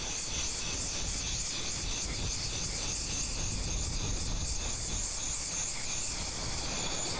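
Cicada singing: a high, rasping buzz that swells in pulses about twice a second, over a low rumbling background.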